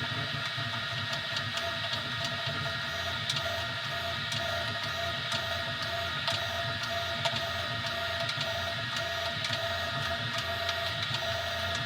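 Easythreed X2 desktop 3D printer running mid-print: a steady whine of several held tones from its stepper motors, over a low hum, with faint scattered ticks.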